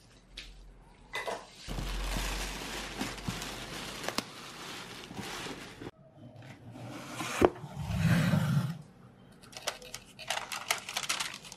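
A plastic takeaway bag rustling as it is handled, then a kraft cardboard box being opened: a sharp click, a short dull thump and paper crinkling around the food.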